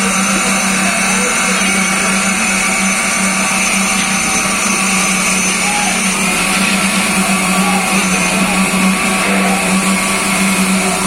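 Concrete-pouring machinery running steadily: an even engine-like hum with a strong low drone and no starts or stops.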